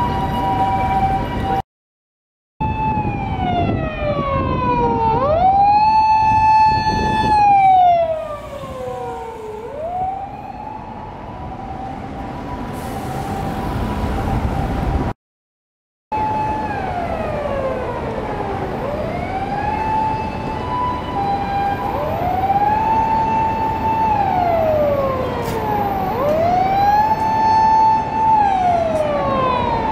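A Japanese ambulance's two-tone hi-lo siren, then a Japanese fire engine's wailing siren that rises, holds a high note and slides down, over and over every few seconds, over city traffic.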